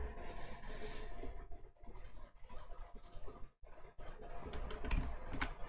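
Computer mouse buttons clicking: a series of short, sharp clicks spaced irregularly through the last few seconds.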